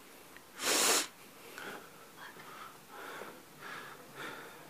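A single sharp, noisy burst of breath lasting about half a second, about a second in, followed by faint, soft breathy sounds roughly every half second.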